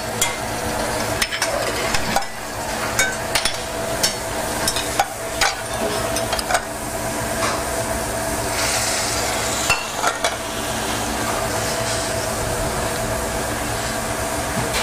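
Stainless steel saucepans and a strainer clinking and knocking on the stove as hot red fruit caramel is strained and poured onto fresh berries, with a soft sizzle and a steady hum underneath.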